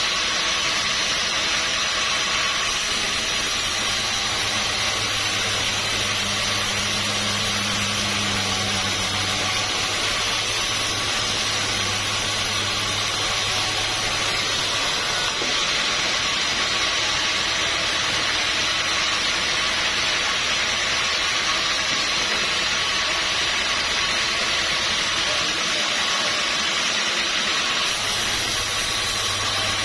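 Sawmill machinery running steadily, a constant hiss-like noise with a low motor hum that comes in a few seconds in, drops away around halfway, and returns near the end.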